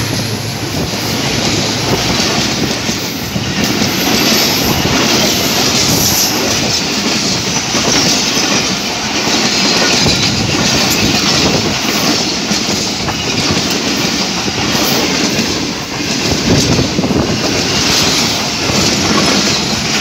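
Pakistan Railways passenger coaches passing at speed close by: a loud, steady rush and rattle of wheels on rail, with clicks as the wheels cross rail joints and, about four to six seconds in, a faint high wheel squeal.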